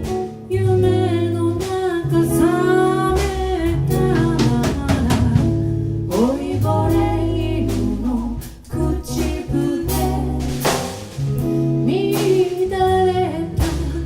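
Live band playing a song: drum kit and bass guitar with guitar, under a lead melody line.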